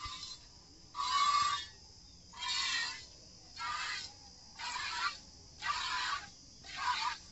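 Streams of milk squirting by hand into a steel pot, a hissing spray that comes about once a second with each squeeze of the cow's teats.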